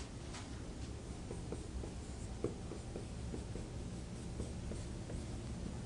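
Faint scratches and light taps of writing on a board, over a steady low room hum.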